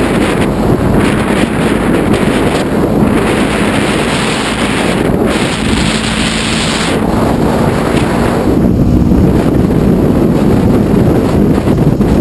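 Loud, steady wind noise buffeting the microphone of a camera on a Honda ST1100 Pan European motorcycle riding at road speed, with the motorcycle's running noise underneath.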